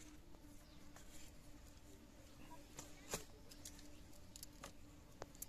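Near silence: faint outdoor background with a few small ticks, the clearest about three seconds in.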